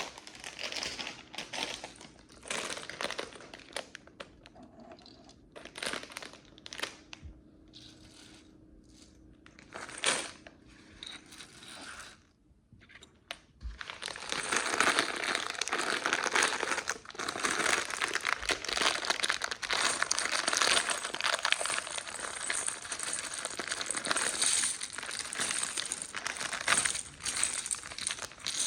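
Hands rummaging through small plastic micro bricks, a crinkling, rattling rustle. It comes in short bursts at first, then about halfway through turns into a continuous rustle.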